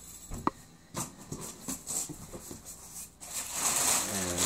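Loose plastic bag crinkling and rustling as a speaker is lifted out of its cardboard box, starting about three seconds in and the loudest sound here. Before it come a few light knocks and handling sounds inside the box.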